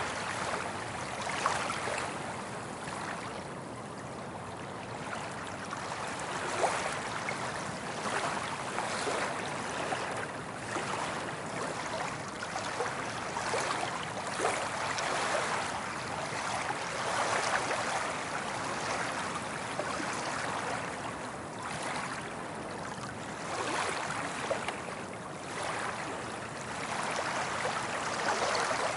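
Soft ocean waves breaking and washing up on a beach: a continuous surf wash that swells and eases every few seconds.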